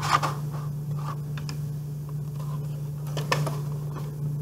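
A plastic VHS cassette and its box being handled: a few light clicks and scrapes over a steady low hum.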